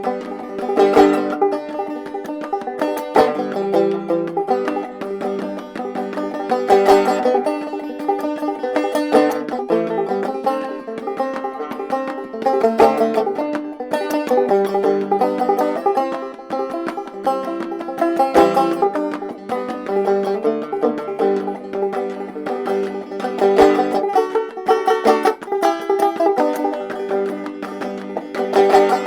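Mulheron banjo played clawhammer style, an instrumental break with no singing: a steady run of picked melody notes with crisp regular strikes.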